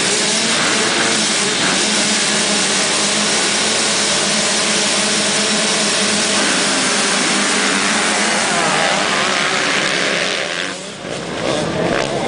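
A full field of motocross bikes revving their engines together at the start gate, a dense mass of many engines at once. Near the end the sound dips briefly, then picks up again as the pack pulls away from the start.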